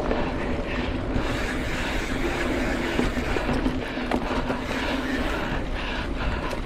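Mountain bike rolling along a dirt trail: steady tyre and riding rumble with wind on the microphone, a low hum, and scattered clicks and rattles from the bike.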